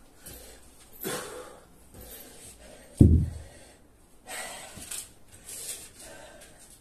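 A man breathing hard and loud between sets of burpees and kettlebell swings, several heavy breaths, with one heavy thud on the floor about three seconds in.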